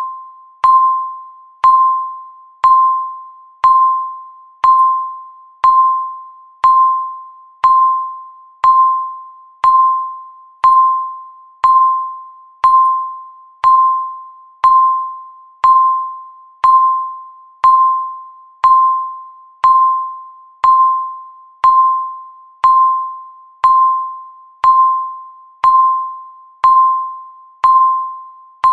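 Countdown timer beeping once a second: the same single electronic tone each time, sharp at the start and fading away quickly, repeating evenly.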